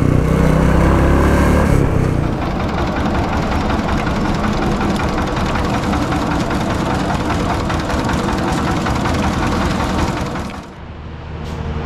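For about the first two seconds, motorcycle riding noise with deep engine and wind rumble. Then a motor-driven roadside sugarcane juice crusher runs steadily, its rollers and gears clattering as cane stalks are fed through. The sound drops away near the end.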